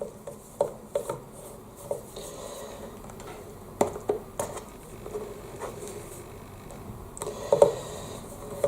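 Handling noises of hands working at the battery compartment on the back of a bass guitar: scattered small clicks and taps over light rubbing, with the sharpest knocks about four seconds in and again a little before the end.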